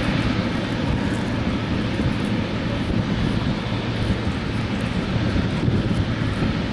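Airbus A380-800 airliner's jet engines running, a steady rumbling roar with a low hum underneath.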